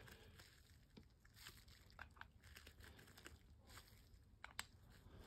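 Near silence, with a few faint, short ticks of a screwdriver tip against the small metal screws of a weed eater carburetor as they are checked for snugness.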